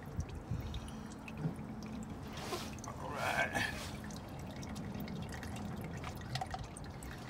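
Used engine oil trickling in a thin stream from the 2003 Chevy Cavalier's oil-pan drain hole and dripping into a drain pan during an oil change. A faint voice is heard briefly about three seconds in.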